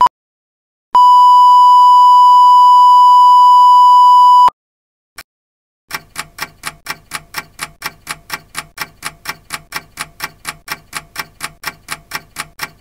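A steady 1 kHz beep tone, the standard censor bleep, held for about three and a half seconds, then a single tick, followed by a fast, even run of sharp ticks at about three to four a second.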